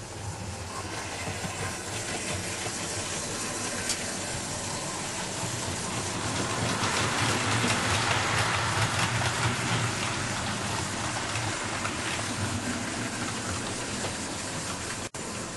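OO gauge model train running on the layout: a steady rumble of coach wheels on the rails and the locomotive's motor. It grows louder about seven to ten seconds in as the carriages pass closest, then fades as the train runs away.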